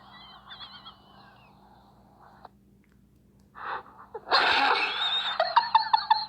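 A person holding in laughter with faint squeaky wheezes, then unable to hold it: about four seconds in it breaks out into loud, high-pitched wheezing laughter with gasps.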